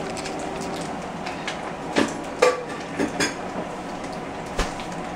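Kitchen clatter: a few sharp knocks and clinks of dishes and utensils from about two seconds in, over a steady machine hum.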